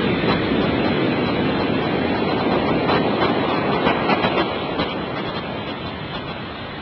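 Heavy ocean surf from a typhoon swell: a steady rush of breaking waves that eases off noticeably about two thirds of the way through.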